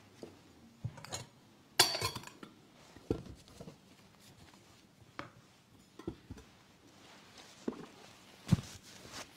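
Communion vessels (chalice, paten and cruets) clinking and knocking on the altar as they are cleared and cleaned after communion. There are about nine separate light knocks and clinks, the loudest a bright ringing clink about two seconds in.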